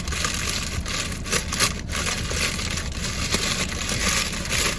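Handling noise: something rubbing and rustling close against the microphone, with irregular crackles, over a low steady rumble.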